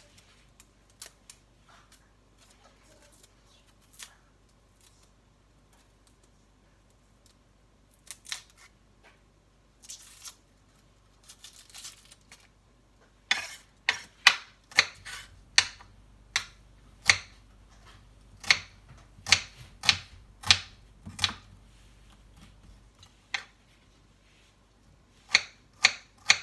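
Chef's knife cutting an onion on a wooden cutting board. It starts with a few light taps and rustles, then about halfway through comes a run of sharp knife-on-board knocks, roughly two a second, which pauses and then picks up again near the end.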